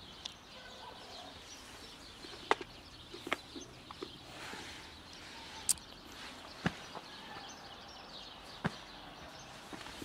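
Faint birds chirping over steady outdoor background noise, with several sharp clicks scattered through it.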